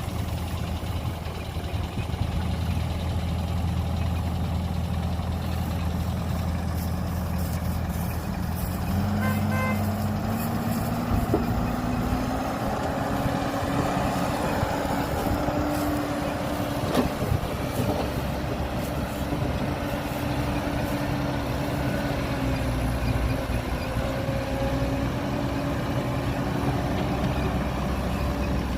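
A heavy diesel engine of the earthmoving machinery runs at a steady low idle, then revs up about nine seconds in and holds a higher working speed, its pitch rising and falling a little. A few short beeps come just as it revs up.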